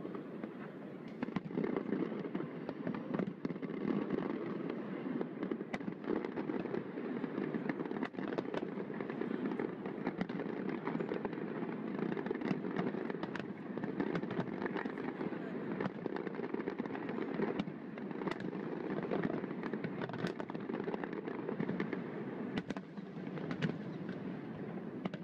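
A fireworks display with many shells bursting at once: a continuous dense rumble of booms, with sharp cracks scattered all through it.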